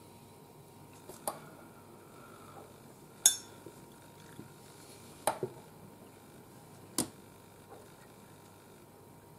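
A few short, light clinks and knocks of small hard objects being handled, about four in all, the loudest a bright, glassy clink about three seconds in.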